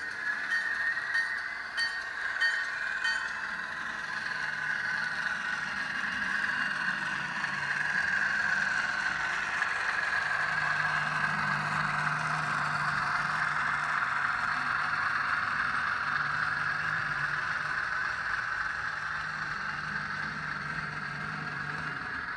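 HO scale model train running on track: the Bachmann ALCO S-4 locomotive's DCC sound decoder plays diesel switcher engine sound through its small speaker, over the hum of the cars' wheels on the rails. It starts with light clicking and grows louder as the train passes close, about halfway through.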